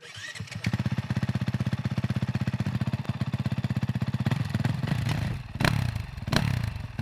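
Motocross dirt bike's single-cylinder engine running with a fast, even beat, then two sharp, louder pops near the end.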